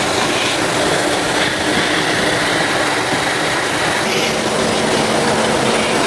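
Woodworking machine cutting wood, giving a steady, loud, noisy whirr.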